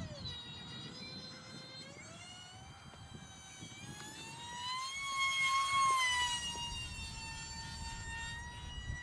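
The E-flite UMX A-10 RC jet's twin 30 mm electric ducted fans whining. The pitch dips and climbs with the throttle, then grows loud and high as the jet passes close about five seconds in, and drops a little as it moves away.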